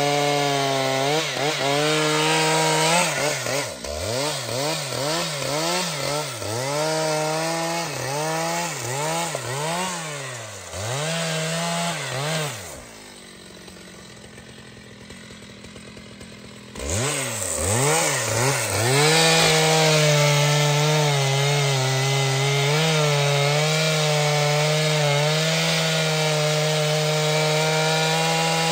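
Large professional two-stroke chainsaw cutting trembesi wood at high revs. For several seconds its pitch dips and recovers about once a second as the chain bogs in the cut. It then drops to idle for about four seconds, is revved back up, and cuts steadily again.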